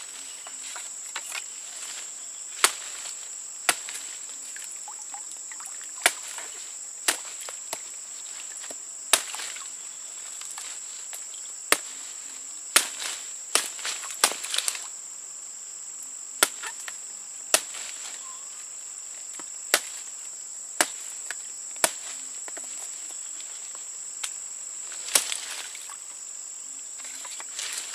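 Insects droning steadily on one high pitch, broken by sharp cracks or snaps every second or two, about sixteen in all.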